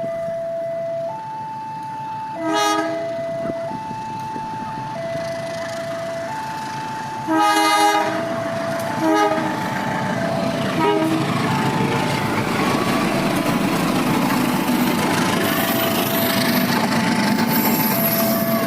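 Level-crossing warning alarm alternating between two tones. A train horn sounds four times: short, then one long blast, then two short ones. The Kaligung passenger train then starts passing with the growing noise of its wheels on the rails, the alarm still sounding over it.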